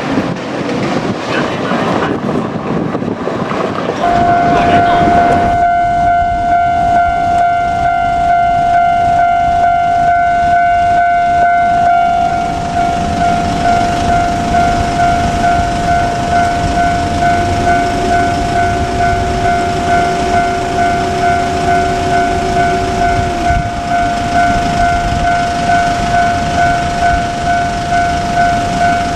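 Japanese railway level-crossing alarm starting about four seconds in and ringing on steadily as a repeating electronic ding, the warning that a train is approaching. Train running noise lies underneath.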